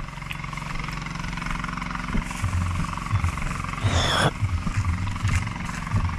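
A small engine running steadily with a low hum, with irregular low bumps and a short hiss about four seconds in.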